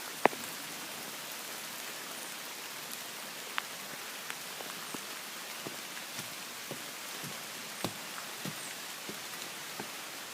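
Steady rain falling, with scattered short, sharp taps on top: one loud tap just after the start, then roughly one every half second through the second half.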